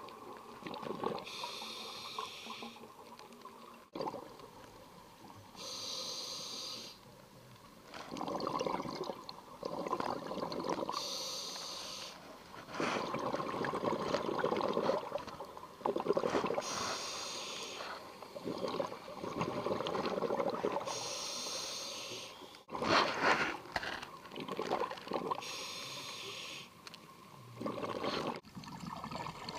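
Scuba diver breathing through a regulator underwater: about six breaths, each a short hissing inhale followed by a longer gurgle of exhaled bubbles.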